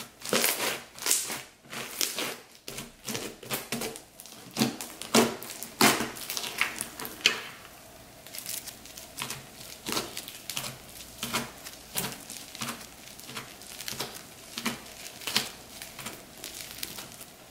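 Clear slime with foam beads mixed through it being worked, the beads giving off many quick, irregular crackles and pops. The crackling is densest in the first half.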